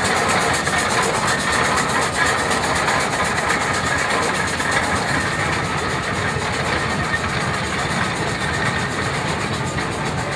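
Steam road roller running, a steady noisy sound with no distinct beats.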